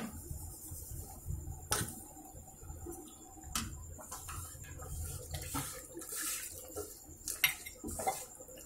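Metal spoon stirring semolina into boiling water in a metal cooking pan, scraping and knocking against the pan with a few sharp clinks spread through.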